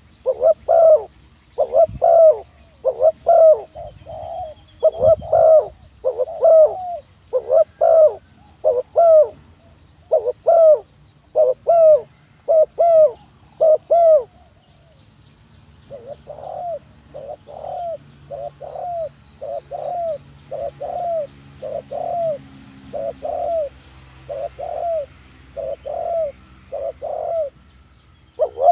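Spotted dove cooing: a long run of short, repeated coos, loud at first. The coos break off about halfway and then resume more softly.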